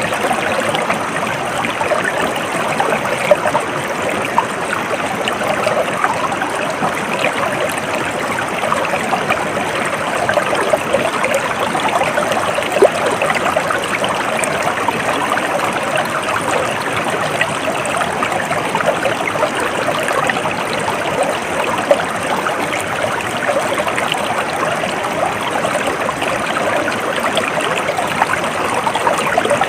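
Stream water flowing steadily, with many small trickles and splashes.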